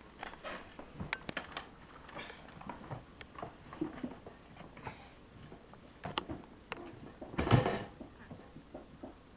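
Scattered small knocks, clicks and rustles of hands handling things at wooden furniture, with one louder thump late on.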